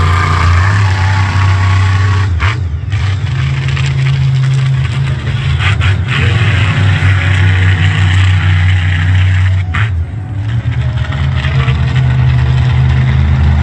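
Monster truck engine revving hard and loud as the truck drives and turns on a dirt track, with the throttle let off briefly about two seconds in and again around ten seconds.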